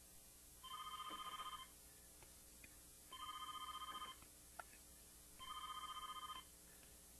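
Desk landline telephone ringing three times with an electronic trilling ring, each ring about a second long with just over a second between rings: an incoming call.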